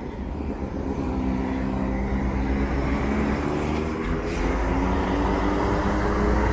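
A motor engine running steadily, its pitch rising slowly through the second half.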